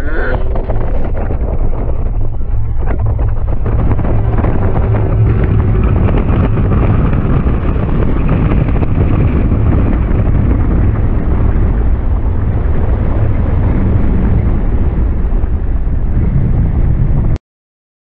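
Heavy wind buffeting the microphone of an onboard camera on a moving roller coaster: a loud, steady rushing rumble that cuts off suddenly near the end.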